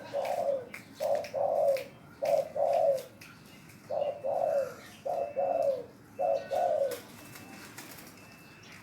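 Spotted dove (tekukur) cooing: about six phrases of soft, falling coos, mostly two notes each, repeated every second or so, stopping about seven seconds in.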